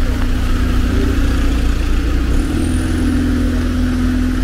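Street traffic: a motor vehicle's engine running close by with a steady hum that grows stronger after about two seconds, over a constant low rumble and hiss.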